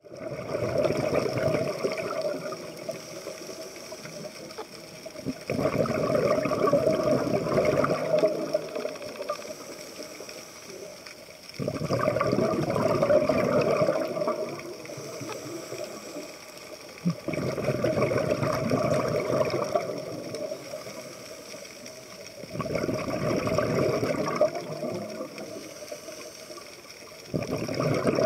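Scuba diver's breathing heard underwater: exhaled air bubbling out of the regulator in bursts of two to three seconds, about one every five and a half seconds, with quieter noise between.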